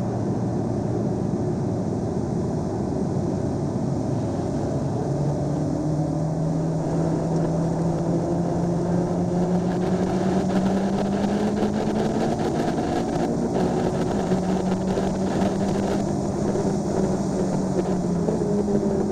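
Honda Civic Si engine heard from inside the cabin at full throttle, its note slowly climbing in pitch as the car accelerates hard down a straight, over steady wind and road noise.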